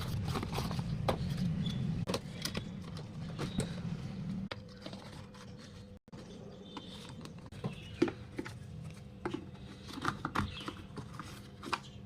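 Scattered clicks and taps of small parts and tools being handled while a replacement speaker driver is fitted into a Bluetooth speaker. A low hum runs under the first four seconds or so.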